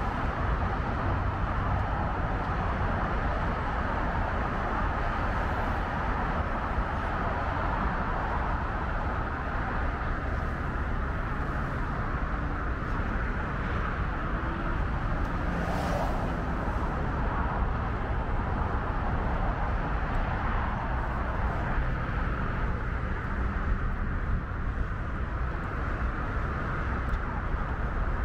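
Dense Interstate 5 freeway traffic running steadily: a continuous wash of tyre and engine noise that never lets up, with one brief sharp sound about sixteen seconds in.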